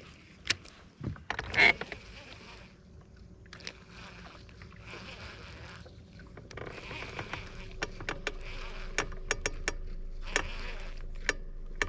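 Baitcasting reel worked by hand: short spells of whirring as the handle is cranked, with sharp clicks from handling the reel and spool. A faint low steady hum comes in about two-thirds of the way through.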